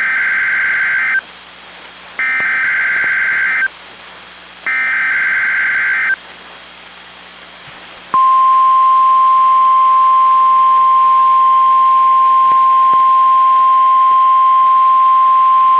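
NOAA Weather Radio SAME alert header played through a weather radio: three bursts of warbling digital data tones, each about a second and a half long with short gaps, then a single steady 1050 Hz warning alarm tone starting about eight seconds in and holding. Together they mark the opening of a Required Weekly Test broadcast.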